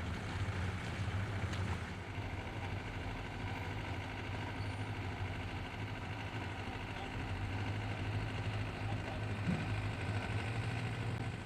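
A vehicle's engine running steadily with an even low hum.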